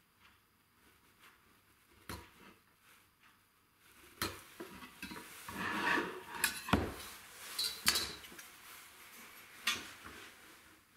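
A metal square and a plywood board handled on a wooden workbench: several sharp knocks and metallic clinks, with scraping and shuffling around the middle as the board is laid flat and the square slid into place.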